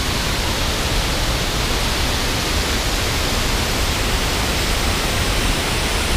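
Waterfall cascading down a rock wall into a pool: a loud, steady, even rush of falling and splashing water.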